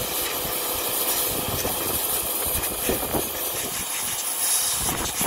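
Kärcher pressure washer running, its jet hissing steadily as it blasts the scales off a pike on a wooden board.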